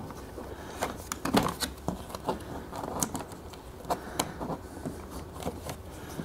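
Hands handling the plastic trim panel in the front trunk of a Porsche 718 GT4 and pressing it into place, giving irregular small clicks and taps of plastic.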